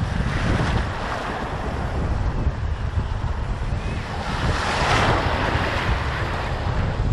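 Rough surf washing onto a sandy beach, with strong wind buffeting the microphone. A louder rush of surf comes about four to five seconds in.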